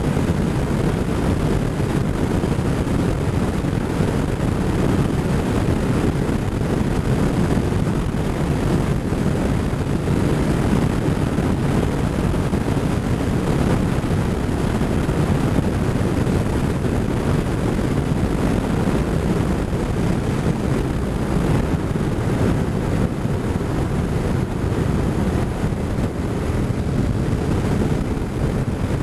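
Motorcycle at steady cruising speed: wind noise over the microphone, with engine and tyre noise underneath, unbroken throughout.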